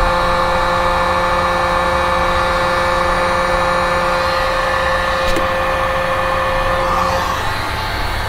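Electric heat gun running: a steady fan whine with a rush of blown air, cutting off about seven seconds in.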